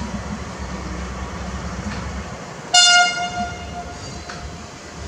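Diesel locomotive running with a steady low engine rumble as it approaches, then one short horn toot a little under three seconds in, loud at first and fading over about a second.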